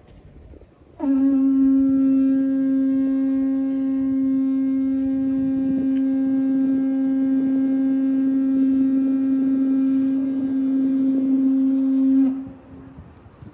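Tower warden's horn blown in one long, steady note of about eleven seconds, starting about a second in with a brief slide down onto the pitch.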